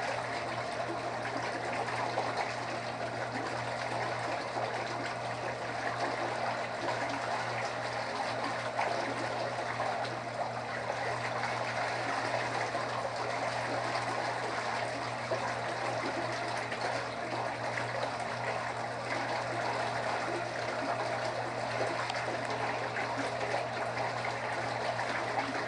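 Hot tub circulation pump running on its timed 10-minute cycle: water churning and trickling steadily over a steady motor hum.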